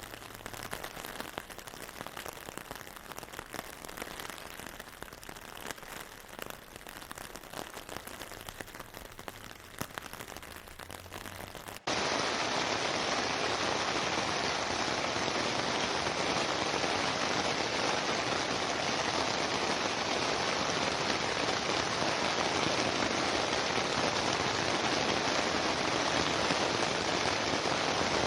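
Rain with a patter of individual drops. About twelve seconds in it switches abruptly to a louder, steady, dense rain hiss.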